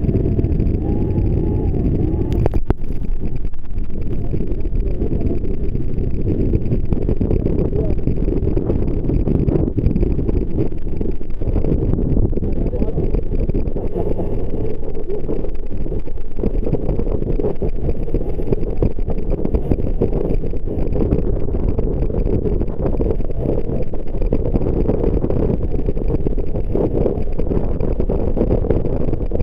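Rigid inflatable boat running fast through heavy swell: a loud, steady rumble of motor, rushing water and wind.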